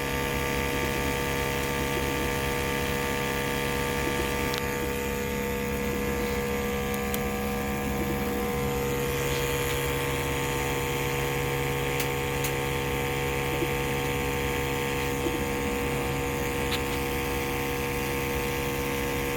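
Vehicle engine idling steadily, with one of its low tones dropping slightly in pitch partway through; a few faint clicks on top.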